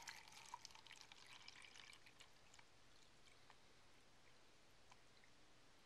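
Faint sound of water poured from a bottle into a small clear plastic tank: a soft splashing hiss with small crackles that is strongest for the first two seconds, then fades to a quieter trickle.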